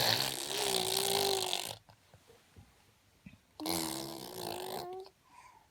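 A baby making two raspy, breathy vocal sounds. The first lasts nearly two seconds; the second comes in a little past the middle and lasts about a second.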